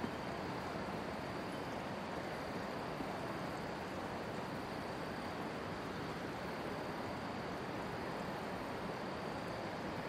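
Steady outdoor background noise: an even hiss with no bird calls or other distinct sounds.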